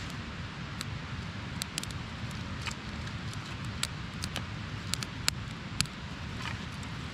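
Small fire of paper and split kindling crackling, with sharp, irregular pops over a steady hiss and a low rumble.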